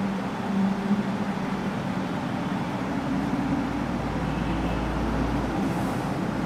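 Steady rushing background noise, with a low rumble that comes in about three seconds in and fades near the end.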